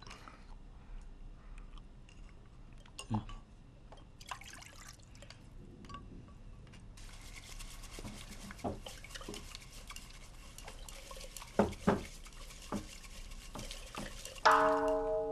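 Liquid poured and stirred in wooden eating bowls, with scattered light clicks of chopsticks and utensils against the bowls. A steady splashing hiss starts about halfway through. Near the end a struck bell rings out with a sustained tone, the loudest sound here.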